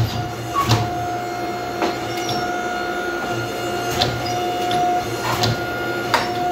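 Power hammer striking hot steel held in tongs, in separate blows at uneven spacing, over the steady hum of the hammer's running machinery.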